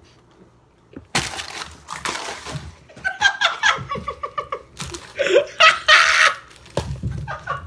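Teenage boys laughing loudly: breathy bursts and rapid pulsed laughs starting about a second in.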